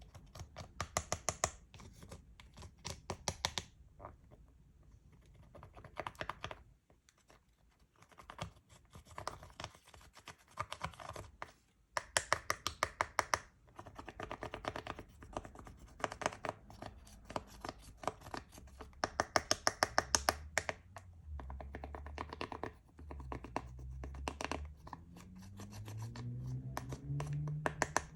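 Slime being squeezed and folded by hand, giving bursts of rapid wet clicks and pops, each burst a second or two long.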